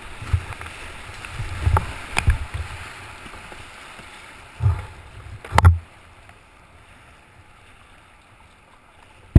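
Whitewater rushing around a kayak as it runs a rapid, with paddle strokes and waves splashing over the bow, heard as about five loud thumps and splashes in the first six seconds. The water noise then drops as the boat reaches calmer, flatter water.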